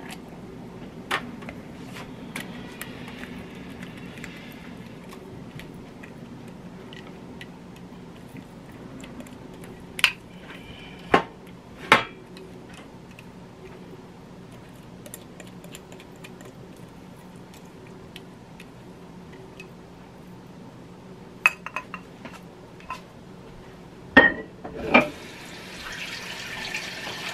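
Kitchen pans and utensils knocking and clinking now and then, a few sharp knocks at a time, over a faint steady hum. Near the end a tap starts running.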